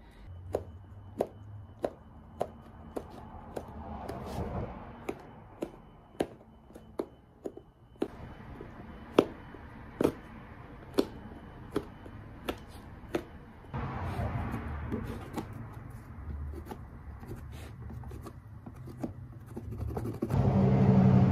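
Hand tool working the welt stitching of a leather boot: a series of sharp clicks, a little more than one a second, as the old stitches are picked and cut. A low steady hum runs underneath and grows louder near the end.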